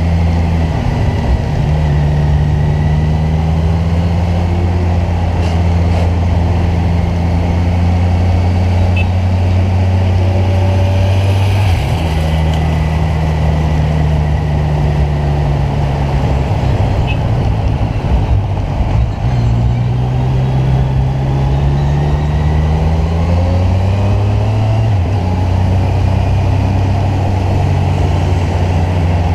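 Kawasaki Ninja 1000's inline-four engine running under way at night, loud and steady. Its note rises and falls several times as the rider changes speed.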